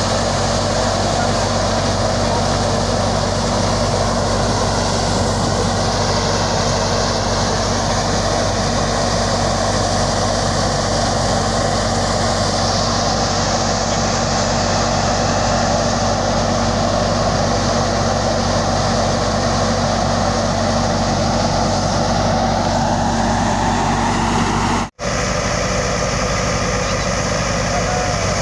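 Tractor-driven wheat thresher running steadily, a loud continuous mechanical drone with the tractor engine's hum underneath. The sound cuts out for an instant near the end, then a tractor engine runs on steadily.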